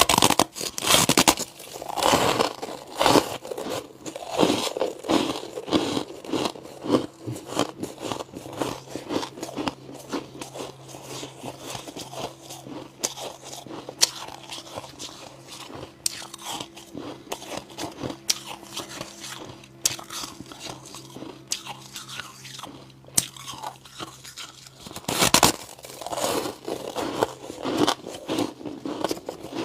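Person biting and chewing chunks of white humidifier ice: a run of sharp crunches, loudest in the first few seconds and again about 25 seconds in. A low steady hum runs under the chewing through the middle stretch.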